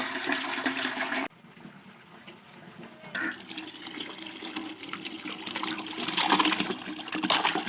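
Water running and splashing, growing louder toward the end, with an abrupt cut and drop in level about a second in.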